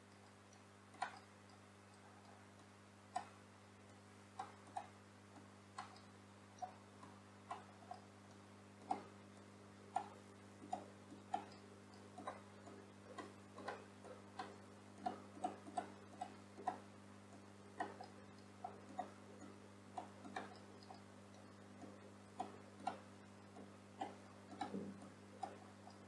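Faint computer mouse clicks, irregular, about one or two a second, over a steady low electrical hum.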